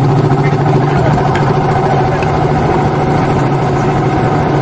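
Vehicle engine running steadily at low revs, with an even hum that holds the same pitch throughout.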